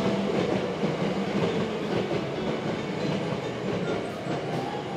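Hankyu 9000 series electric train running past at close range, a steady noise of wheels on rails with clicks over the rail joints.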